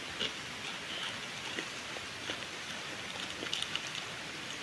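Plastic instant-noodle packet crinkling in the hands, with scattered light crackles as dry noodles are picked out of it.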